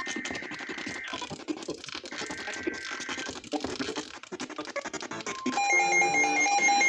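Radio static crackling with dense clicks and faint broken tones. About five and a half seconds in, a loud steady electronic tone begins, with higher tones pulsing over it.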